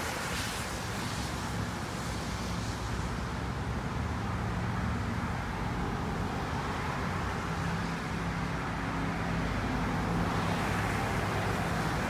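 Steady road traffic noise with a low engine hum, a little louder near the end.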